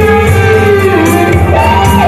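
Live music from a guitar-and-keyboard duo: guitar and keyboard over a steady beat, with a melody line that slides down in pitch and then jumps up.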